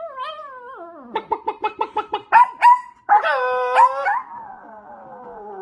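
Small Chihuahua-type dog howling: a wavering howl, a quick run of short yelps about six a second, then a loud howl that slides slowly down in pitch and lasts over two seconds.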